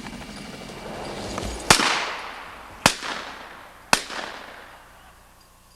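Three shotgun shots about a second apart, each a sharp report with a rolling echo, the first the loudest: hunters firing at a flushed game bird.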